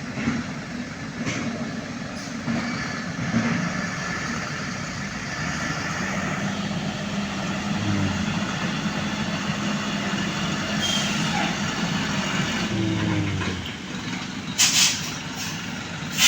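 Engine of a grapple loader running steadily as it lifts oil palm fruit bunches, followed by two short, loud hisses near the end.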